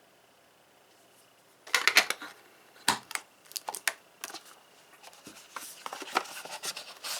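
Quiet for the first second and a half, then irregular clicks, knocks and rustling from small hand tools being handled, set down and picked up.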